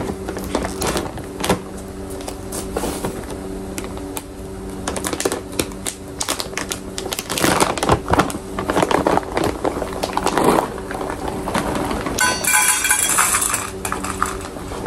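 Plastic bag of dry puppy food being torn open and handled, crinkling and crackling in irregular bursts, with a brief rattle near the end as the bag is tipped.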